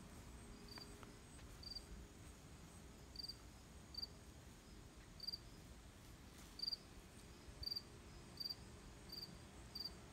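Faint, short high-pitched chirps repeating about once a second, coming quicker near the end: a small animal calling.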